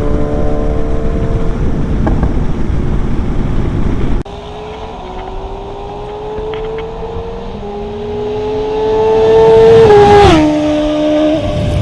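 BMW S1000XR's inline-four with a full exhaust, ridden on the road, running under a low wind rumble. After a sudden drop in level about four seconds in, the engine pulls with a steadily rising pitch, getting louder. About ten seconds in the pitch drops sharply at a gear change.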